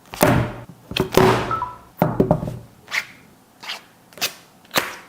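Handling noise from unboxing a tablet: a series of sharp knocks, clicks and short rustles as the box, its packaging and the device are picked up and set down, about one or two a second.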